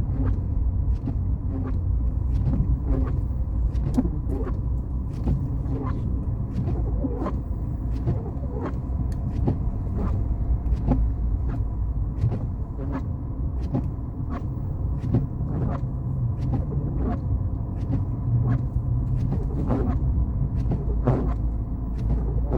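A car driving, with a steady low rumble of engine and road noise and a quick, uneven run of sharp clicks, about two or three a second.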